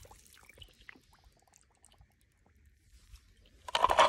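Faint lapping and dripping of pool water after a small plastic toy truck has dropped in, then near silence. Near the end comes a short burst of clattering and scraping as a plastic toy hauler truck is grabbed off a stone ledge.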